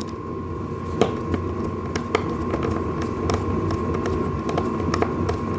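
A steady low hum of room or machine noise, with a few light clicks and knocks as wooden table panels and fittings are handled during assembly.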